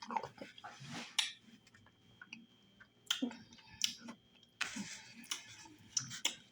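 Close-up mouth sounds of someone eating fufu with okra stew: wet chewing and lip smacks, with many short, sharp clicks scattered throughout and a few longer, noisier sounds about a second in and past the middle.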